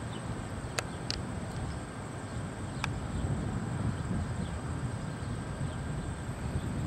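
Low steady rumble of a diesel freight locomotive in a rail yard, with a thin steady high insect buzz over it and a few short clicks in the first three seconds.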